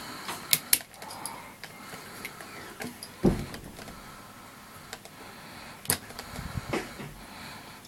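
Hard plastic toy parts clicking and knocking as a sword accessory is handled and fitted back onto a plastic Megazord toy, with a few scattered clicks and one louder knock a little after three seconds in.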